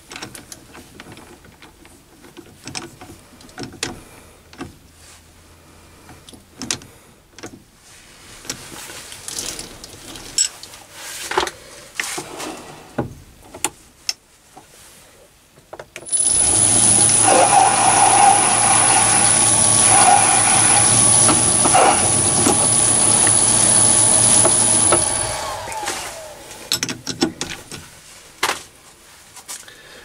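Metal clicks and knocks as a brass part is set in a mini lathe's four-jaw chuck and the chuck key is worked. About halfway through, the mini lathe starts and runs for about nine seconds with a high steady whine while a center drill in the tailstock chamfers the brass; it then winds down and more handling clicks follow.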